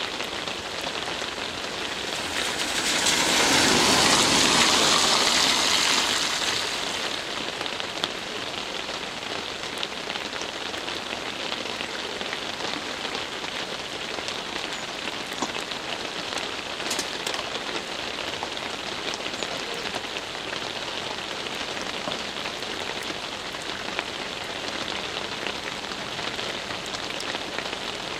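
Steady rain falling on a road and on foliage. A few seconds in, a car's tyres swell up loud over it with a hiss on the wet road, then fade.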